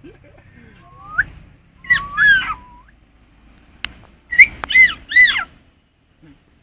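A parrot whistling: a rising whistle about a second in, a warbling run of whistled notes around two seconds, then three arching whistled notes near the end. A single sharp click falls between them.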